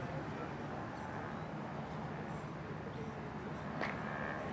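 Steady outdoor background noise with no clear single source, and one short sharp click near the end.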